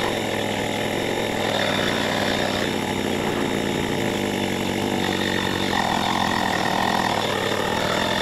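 GOOLOO battery-powered portable tire inflator, a small air compressor, running steadily under load while filling a flat truck tire, heard close up.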